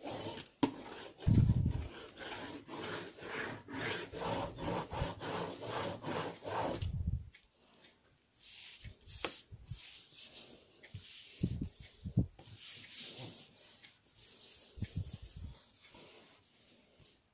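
A rubber brayer rolled back and forth through wet paint on a desk mat, a sticky rubbing sound in quick repeated strokes, with a loud bump about a second and a half in. The rolling stops about seven seconds in, and a sheet of paper is laid on the wet paint and rubbed down by hand, with soft rustling and a couple of low thumps.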